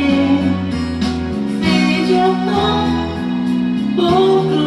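Music: a Japanese pop song sung over guitar backing.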